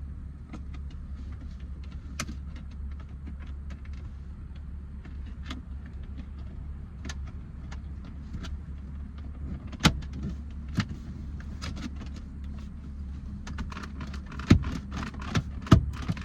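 Scattered plastic clicks and a few sharper knocks from handling shift-knob and shift-boot trim parts around a car's gear lever, busier near the end, over a steady low hum.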